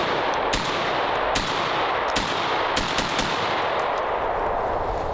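Panzer Arms M4-style semi-automatic shotgun fired several times in fairly quick succession, the shots standing out over a continuous rushing noise.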